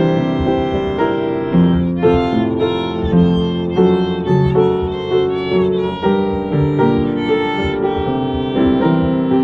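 Violin playing a pop-song melody of sustained notes, some with a slight vibrato, over upright piano accompaniment.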